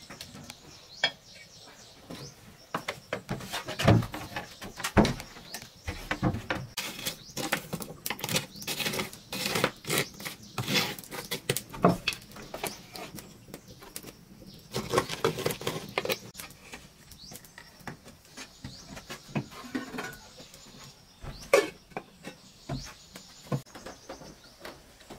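Irregular knocks and clatters of metal pots and lids being handled on a wood-fired stove, busiest through the first two-thirds, then thinning out to a few scattered knocks.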